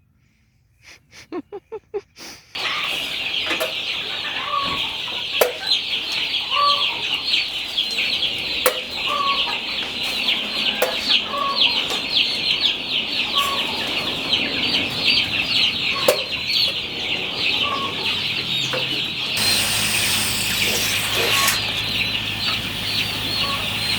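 Chickens: a dense, continuous high chirping of many birds, with a lower cluck repeating about once a second, starting suddenly about two and a half seconds in. A steady hiss joins near the end.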